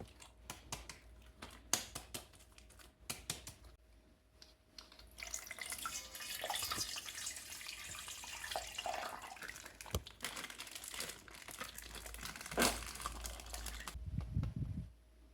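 Plastic bag crinkling with water splashing: a few scattered crinkles, then about nine seconds of continuous rustling and water noise, with a couple of low thumps near the end.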